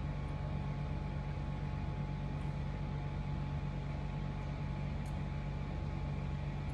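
Steady low hum with an even hiss, the room's constant background noise, with a couple of faint ticks.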